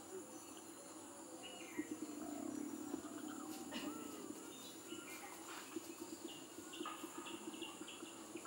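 Rural outdoor ambience: birds chirping in short calls and quick gliding notes, over a steady high-pitched insect drone and a lower, pulsing buzz.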